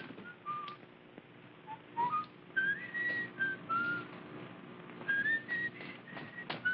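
A person whistling a tune in short separate notes, some sliding up in pitch, with a few light clicks from poker chips and playing cards being handled.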